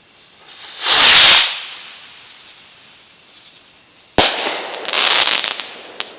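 A firework rocket launches with a loud whoosh about a second in. About four seconds in it bursts with a sharp bang, followed by a couple of seconds of fizzing crackle as its brocade and time-rain stars burn out.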